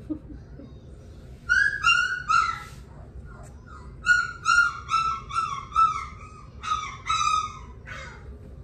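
A young puppy whining in high-pitched cries, each falling slightly in pitch. Three come about a second and a half in, then a run of about eight more from about four seconds in.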